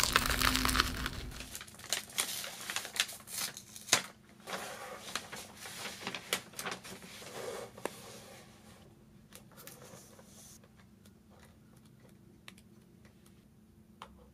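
A flaky almond croissant torn apart by hand, its crust crackling, followed by a run of sharp crisp clicks and rustles. Past the middle these thin out to faint taps from handling a spiral notebook.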